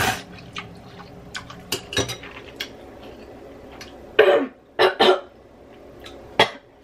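A woman slurps in a mouthful of noodles right at the start, then chews with small lip-smacking clicks, then coughs four times, about four seconds in and just before the end.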